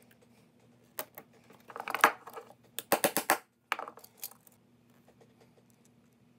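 Small metal screws and 3D-printed plastic extruder parts being handled: scattered light clicks and a short rattle, loudest about two to three seconds in.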